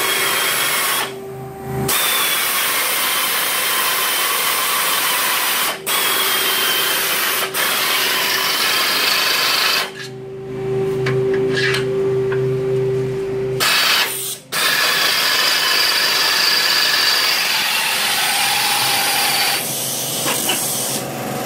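Power drill boring through the steel tube of the front bumper reinforcement bar to make bolt holes for the mounting brackets. It runs in long stretches and lets off briefly a few times, for a few seconds about ten seconds in.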